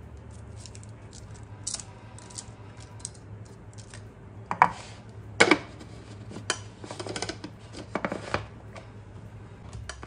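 Kitchen handling noise: a run of light clicks and rustles, then several louder knocks and clinks from about four and a half to eight and a half seconds in as ingredients and utensils are handled at the chopper, over a low steady hum.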